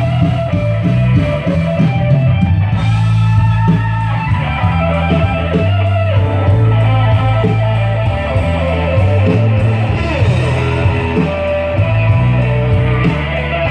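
Loud rock music with electric guitar, bass and drums played through PA speakers, with some singing.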